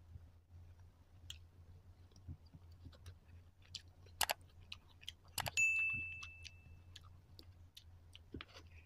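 Close-up mouth sounds of noodles being chewed, with soft wet clicks and smacks. Over them, a subscribe-button sound effect: a mouse click about four seconds in, then a second click and a bell ding that rings out for about a second and a half.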